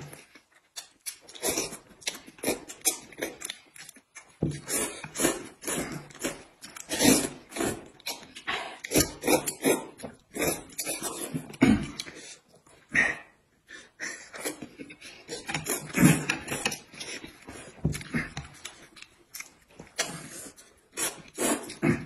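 Two people slurping and chewing noodles from bowls of soup, in quick, irregular wet slurps and mouth noises.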